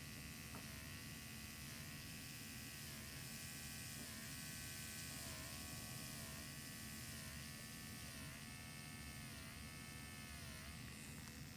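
Motorized FUE punch handpiece whirring during graft harvesting, its pitch dipping briefly and recovering over and over, a little more than once a second, as it cores out grafts.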